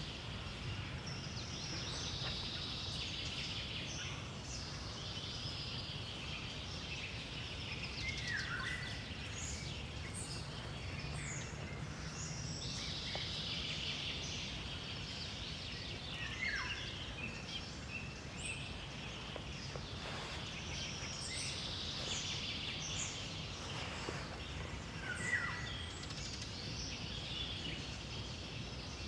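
Sparrows chirping in a continuous dense chorus, with a clear falling note standing out three times, over a steady low background rumble.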